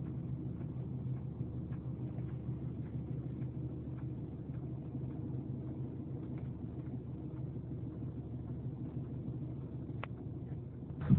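Steady low mechanical rumble with a constant hum, and a few faint clicks over it; one sharper click about ten seconds in.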